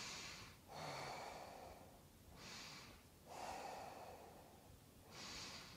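A woman's faint, slow deep breathing: a few long breaths in and out, each a soft hiss separated by short pauses.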